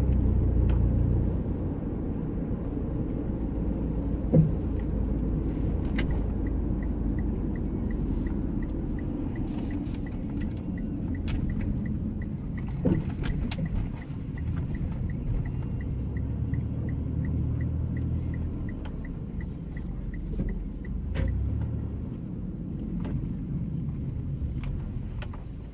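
Car cabin with engine and road rumble as the car pulls over, and a turn signal ticking steadily for about fifteen seconds.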